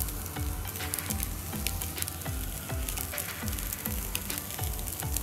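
Two steaks sizzling on a charcoal grill grate over glowing coals, with frequent small crackles and pops. Background music with a beat plays under it.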